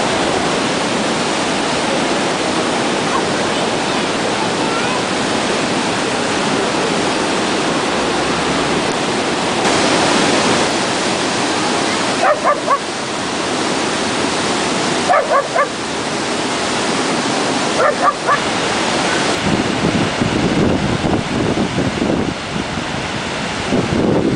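Pawtuxet River in flood, white water rushing steadily under a bridge. A dog barks in short bursts a few times around the middle.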